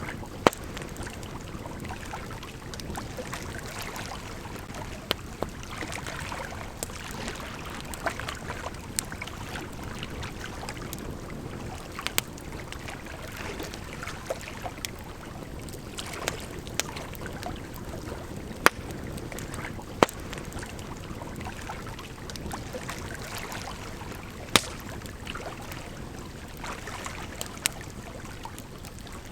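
Wood campfire crackling, with sharp irregular pops, over the steady rush of a gently flowing river.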